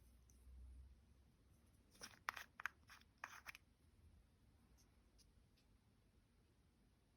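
A quick run of about six sharp clicks and scrapes from small hard objects being handled, starting about two seconds in and lasting about a second and a half; otherwise near silence.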